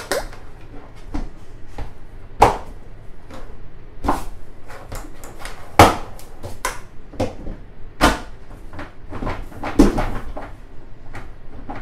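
Hard plastic parts of a Graco Blossom high chair knocking and clicking as the seat back is pushed and slid into the seat base: a run of light clicks and rattles with four much louder knocks spaced a couple of seconds apart.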